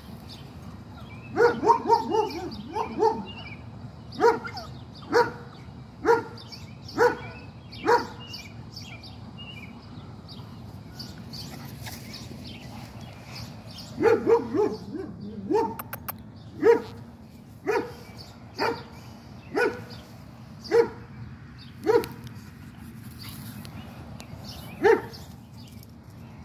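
A dog barking: a quick run of barks a second or so in, single barks about one a second after that, a pause of several seconds, another quick run, then spaced single barks, the last near the end.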